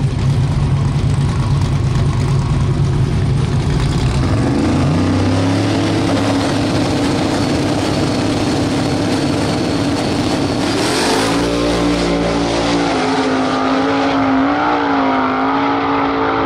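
Two drag-race Chevy Novas at the starting line: engines idling, then brought up to a steady higher rev for staging, then launching about eleven seconds in with a sudden burst, running hard down the track with the engine pitch wavering.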